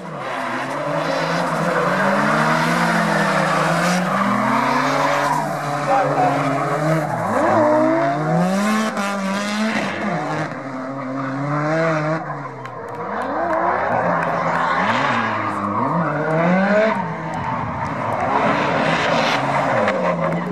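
Drift cars sliding with tyres squealing, their engines revving up and down over and over as the throttle is worked.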